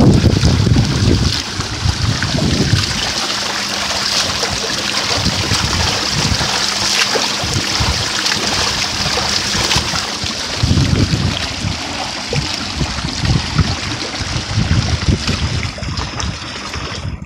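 Steady splashing of front-crawl swimming strokes in a pool, with water from the rim spouts pouring in. Low wind buffeting on the microphone at the start and again about ten seconds in.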